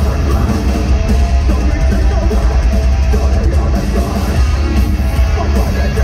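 Heavy metal band playing live through an arena PA, heard from the crowd: loud guitars and drums over a heavy, booming low end.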